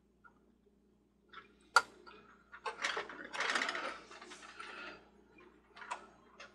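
Small plastic and metal parts of a carousel's motor and rotor assembly being handled and fitted: a sharp click just before two seconds in, then a few seconds of rattling and scraping, and another click near the end.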